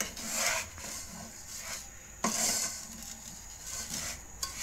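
Wooden spatula stirring and scraping dry fried laccha vermicelli around a nonstick pan, in a few rustling, scraping strokes. The strongest strokes come at the start and a little past two seconds in.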